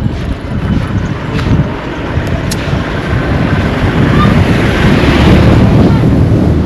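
Wind buffeting the microphone, a loud low rumble, over road traffic noise; it swells about four seconds in.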